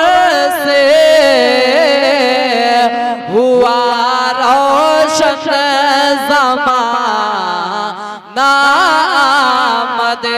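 A man singing a naat unaccompanied into a microphone, drawing out long ornamented notes with a wavering pitch, with brief breath pauses about three and eight seconds in.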